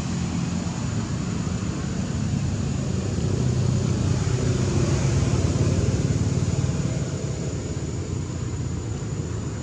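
Steady low rumble of a vehicle engine, growing louder for a few seconds in the middle and then easing off.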